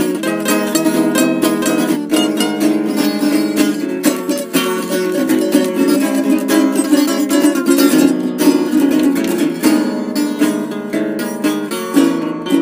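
Ukulele and guitar playing together, a busy run of fast plucked notes.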